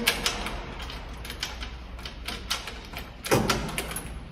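Scattered light clicks and rattles of a car's engine-compartment grille being handled and its bolt screwed back in by hand, with one louder knock about three seconds in.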